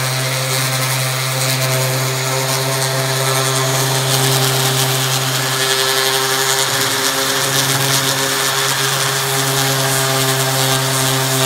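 DeWalt orbital sander running steadily with a coarse 60-grit disc against a wooden axe handle: a constant motor hum under the scratchy hiss of sandpaper on wood. The hum shifts briefly about seven seconds in.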